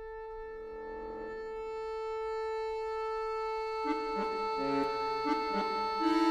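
Concert accordion holding one long high note that slowly swells louder, joined about four seconds in by lower notes that change in short, uneven steps beneath it.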